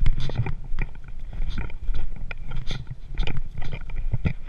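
Footsteps crunching on snow and stones, irregular crunches and scrapes several times a second, over a low rumble of camera handling.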